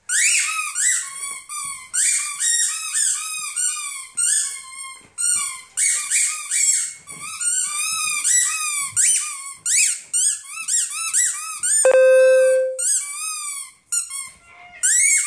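A squeaky dog toy squeaked over and over by a dog biting it: rapid, high squeaks, several a second, each falling in pitch. About twelve seconds in comes one longer, lower, steady squeal.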